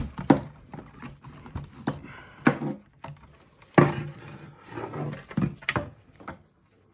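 Black plastic cover of an APC RBC116 UPS battery cartridge being unclipped and lifted off its lead-acid cells. There are several sharp plastic clicks and knocks, with quieter handling rustle between them.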